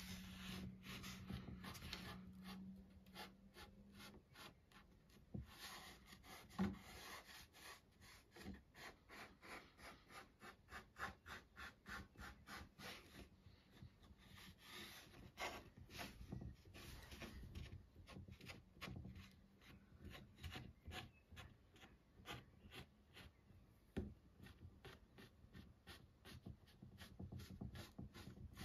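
Fingertips rubbing and pressing along the rim of a soft clay plate to smooth and shape it: faint, quick, repeated soft strokes, with an occasional light tap.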